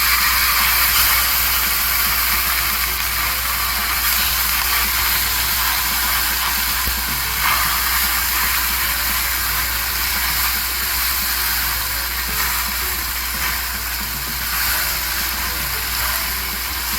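Chicken quarter legs sizzling steadily on a very hot indoor smokeless grill, over a low steady hum.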